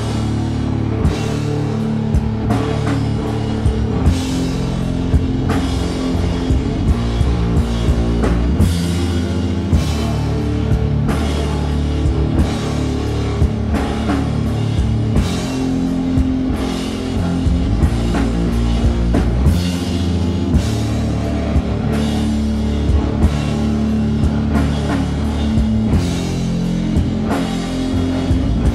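A rock band playing live: electric guitars through Marshall amplifiers, bass guitar and a drum kit with steady beats, loud and continuous, with no singing.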